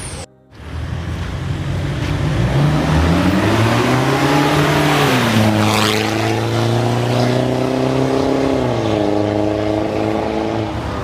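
Mitsubishi Pajero Sport engine running through a new full stainless-steel exhaust with an Akrapovic tip. After a brief cut-out just after the start, the exhaust note climbs for a couple of seconds, falls back and holds steady, then drops lower again near the end.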